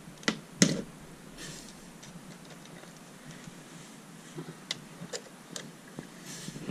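A power plug pushed into a wall socket: two sharp plastic clacks in the first second, the second much louder. Then scattered light clicks and brief rustles as cables and plugs are handled.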